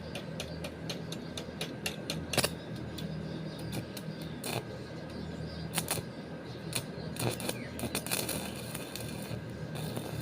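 Light clicks, about three or four a second for the first couple of seconds, then scattered sharper clicks and knocks, over a steady low hum.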